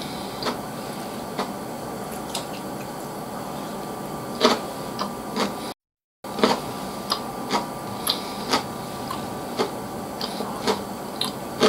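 A person eating with chopsticks: wet chewing clicks and lip smacks, with now and then a chopstick tap on a ceramic dish, over a steady background hiss. About halfway through, the sound cuts out completely for half a second.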